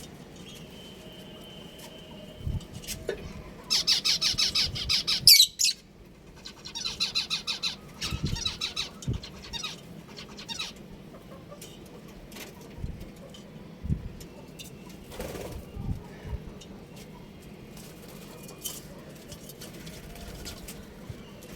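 Budgerigars in a colony chattering, with two loud bursts of rapid, high-pitched warbling about four and seven seconds in, between quieter chirps. Scattered clicks and soft thumps of the birds moving and flapping their wings run through it.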